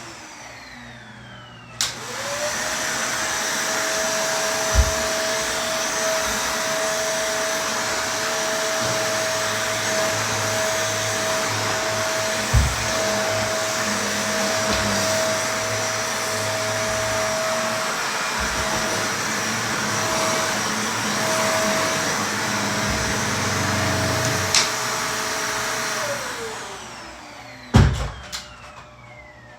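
Vacuum cleaner switched on with a click, its motor whine rising quickly and then running steadily with a rushing suction noise, broken by a few thumps. About 26 seconds in it is switched off and the whine falls away as the motor winds down, followed by a loud knock.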